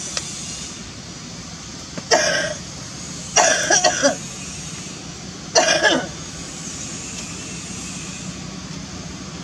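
Three bouts of coughing, about two, three and a half and five and a half seconds in; the middle bout is a quick run of several coughs. A steady low hum runs underneath.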